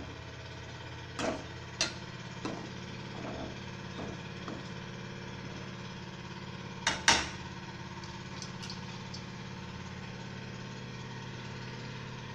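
Steel ladle knocking and scraping against a steel pan while stirring thick curry, a few scattered clinks with a loud double knock about seven seconds in. Under it runs a steady low mechanical hum.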